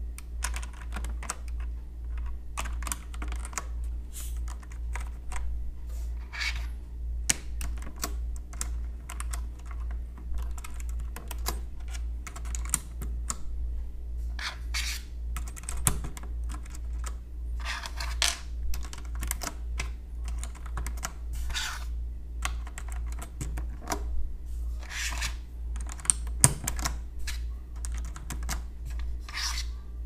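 Plastic keycaps being pressed back onto the Cherry MX Red switch stems of a Das Keyboard mechanical keyboard: irregular clicks and clacks, with short scraping rustles, over a steady low hum.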